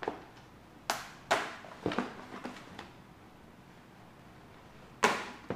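A cardboard shipping box being opened by hand, its packing tape torn off and flaps pulled open. There are three sharp ripping, scraping sounds in the first two seconds, a quiet pause, then two more near the end.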